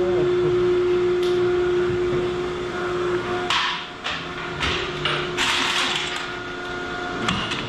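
Machine-shop noise: a steady machine hum that stops about three seconds in, then several short bursts of hiss and a few knocks.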